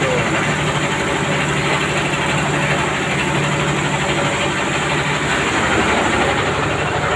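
Rice mill machinery running steadily: a loud, even mechanical din over a constant low hum and a fast low pulsing.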